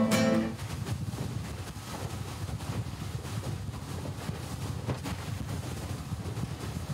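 Small motorboat running at speed across choppy river water, with wind rushing over the microphone as a steady low rumble.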